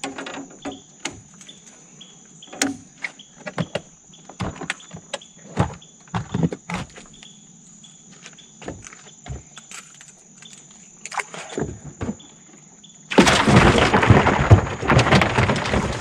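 Scattered knocks and clicks of gear being handled in a small fishing boat, over a steady high drone of insects. About thirteen seconds in, a loud rough rustling close by lasts for about three seconds.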